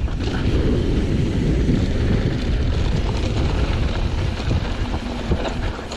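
Wind buffeting the microphone over the steady low rumble of a mountain bike rolling fast down a dirt trail; the noise eases a little near the end.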